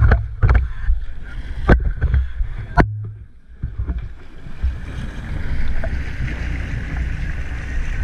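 Sportfishing boat's engine running with water and wind noise, a few sharp knocks in the first three seconds and a brief lull about three seconds in, then a steady rush.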